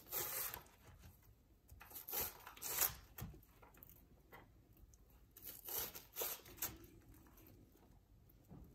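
Chef's knife slicing down through a scored onion half onto a bamboo cutting board, dicing it: faint, irregular knife strokes, a few louder than the rest.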